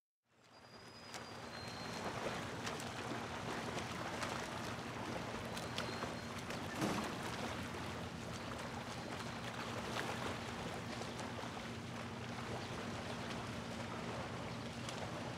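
Steady outdoor ambience fading in over the first two seconds: an even wash of noise under a low steady hum, with scattered faint clicks and a couple of short high whistles about a second in.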